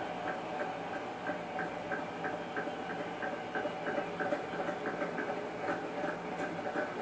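Stadium crowd cheering and applauding in a standing ovation, heard through a television's speaker, with a regular pulse about three times a second running through the roar.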